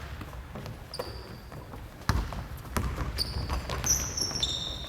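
Basketball play on a gym court: sneakers squeaking in short high chirps on the floor, with sharp bounces and a heavy thud about two seconds in.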